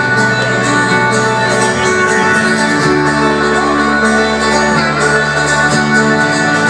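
Live folk-rock band playing, with strummed acoustic guitar and other plucked strings over held low notes that change twice.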